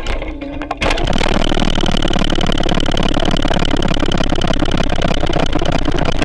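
Loud, rapidly pulsing engine-like buzz from an amplified DIY bicycle instrument. It starts abruptly about a second in, and a steady high whine rides above it shortly after.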